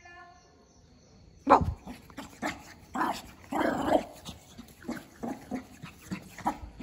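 Small dog barking in play: a brief whine at the start, then an irregular run of short barks and growls. The loudest bark comes about a second and a half in.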